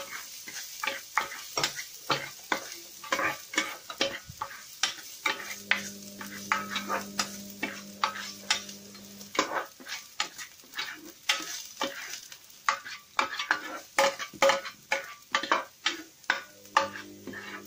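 Chopped garlic sizzling in hot olive oil while a utensil stirs it, clicking and scraping against the pan several times a second.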